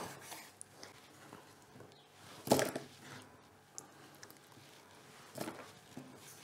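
Kitchen work on a wooden cutting board while halving cherry tomatoes: two soft knocks, one about two and a half seconds in and one near the end, with a few faint clicks between.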